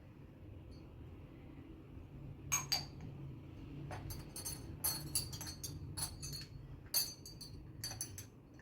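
Light clinks and taps of small hard objects, glass or ceramic, irregular and starting about two and a half seconds in, over a low steady hum.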